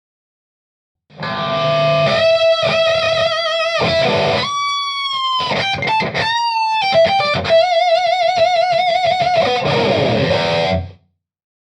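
Distorted electric guitar played through a Limetone Audio Focus NX compressor pedal. It starts about a second in with chords, moves to a lead line with string bends and a long held note with wide vibrato, and returns to chords. It stops shortly before the end.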